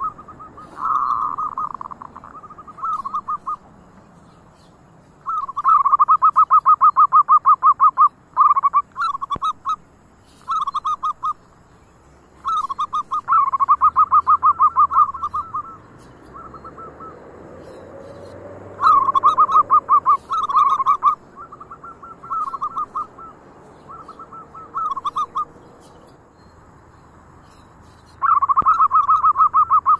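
Zebra doves (perkutut) cooing: repeated phrases of rapid, staccato notes, each phrase lasting one to three seconds with short pauses between.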